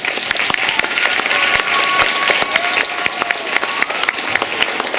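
Audience applauding: many hands clapping at once in a hall.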